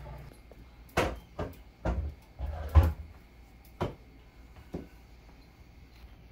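Wooden rolling pin knocking and thudding on a stone countertop while roti dough is rolled out: about seven irregular knocks over the first five seconds, the loudest with a dull thud about three seconds in.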